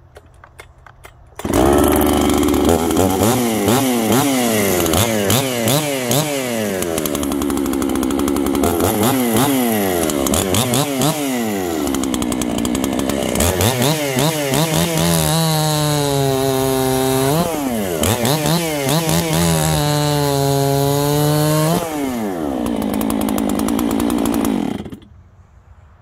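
Modded Husqvarna 268 two-stroke chainsaw with a ported 272 cylinder, advanced ignition timing and a 288 carburettor starting about a second and a half in and revved up and down again and again. It is held steady at high revs twice, drops back around twenty-two seconds in, and shuts off near the end.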